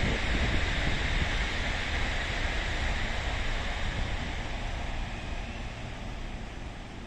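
Wind rumbling on the microphone over a steady hiss that slowly fades, as a Meitetsu electric train at the platform starts to move off.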